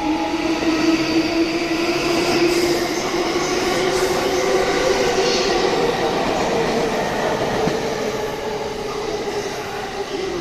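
JR East E235-1000 series electric train moving along the platform, with a steady motor whine that rises slightly in pitch over the first few seconds, over wheel and rail running noise.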